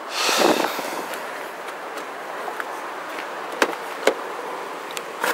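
Rustling handling noise at the start. Then two sharp clicks about half a second apart as the rear side door of a 1998 Ford Expedition is unlatched by its handle and swung open.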